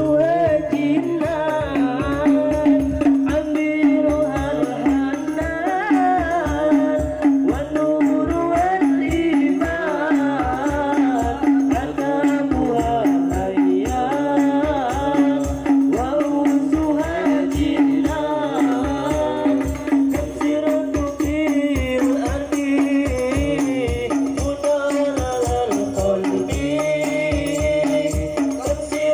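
Hadroh ensemble performing an Islamic devotional song: a voice singing a bending, ornamented melody into a microphone over dense, fast strokes on rebana frame drums, all amplified through loudspeakers.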